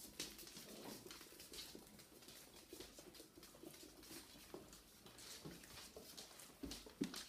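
Puppies' paws and claws tapping and pattering faintly and irregularly on a wooden floor.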